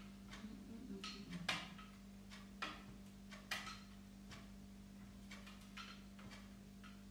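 Irregular light clicks and knocks as a ring light's centre mount is handled and adjusted, several in the first few seconds and fewer later, over a steady low hum.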